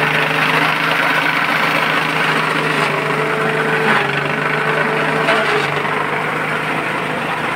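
Small engine-driven forage chopper running steadily while corn stalks are fed into it, a constant engine hum with a few brief sharper knocks from the cutting.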